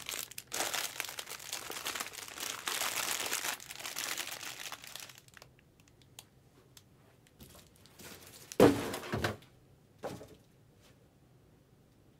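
Packaging being crinkled and torn for about five seconds, then a few dull knocks, the loudest about nine seconds in and another a second later.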